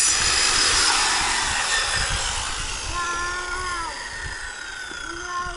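Handheld electric circular saw cutting through a wooden pallet board, running loud for about the first two seconds, then the blade spinning down with a falling whine as the noise fades.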